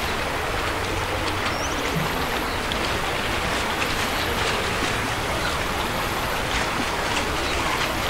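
Steady rushing of flowing river water, with a few faint bird chirps.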